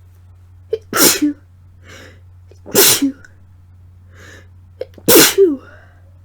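A woman sneezing three times, loud and about two seconds apart, with sharp breaths in before each sneeze and breathy breathing between them. The sneezes are deliberately induced during a cold. The last sneeze trails off into a falling voiced sound.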